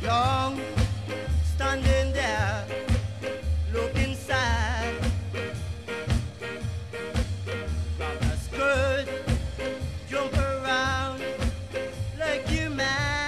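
Background music: an upbeat song with a steady beat, a bass line and a wavering melody line.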